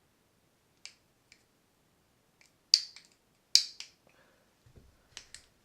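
Sharp clicks and taps of small metal parts against a spinning reel's housing as the drive shaft is worked at to pull it out, the shaft perhaps seized in a corroded bearing. About eight clicks, two of them much louder near the middle.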